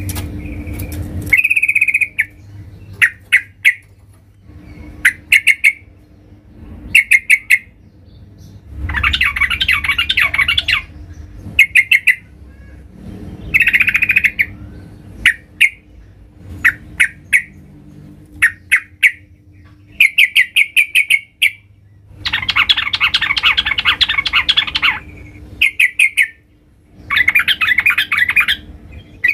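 Caged yellow-vented bulbul calling loudly. It gives short clusters of quick notes every second or two, with a few longer, harsher chattering spells of two to three seconds. These are the energetic 'gacor' calls of a bird in top form, challenging a rival.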